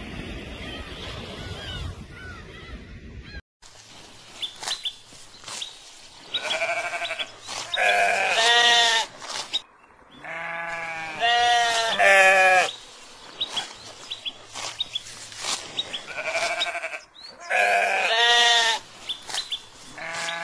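Wind and surf noise for the first few seconds, then a lamb bleating again and again, the calls coming in short groups of two or three.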